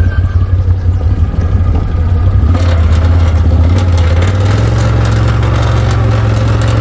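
Engine running steadily. A rattling noise joins about two and a half seconds in, and the engine's pitch steps up slightly about four and a half seconds in.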